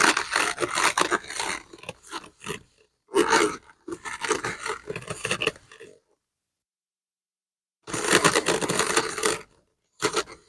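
Hands wiping and scrubbing a bag with a cloth: irregular bursts of rubbing and scraping against the bag, broken by about two seconds of dead silence midway.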